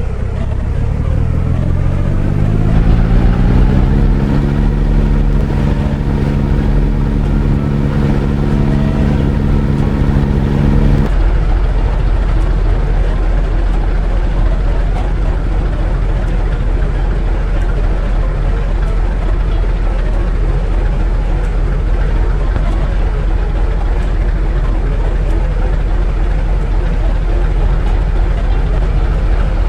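A motor spinning up, its hum rising in pitch over about four seconds and then holding steady. After an abrupt cut it gives way to a steady low rumble.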